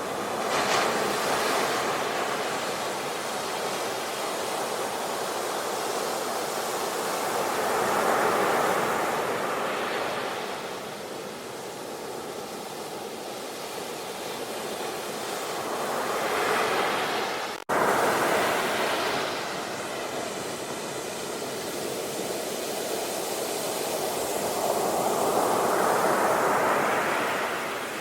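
Ocean waves breaking and washing on a shore, rising and falling in four slow surges. There is a brief dropout about two-thirds of the way through.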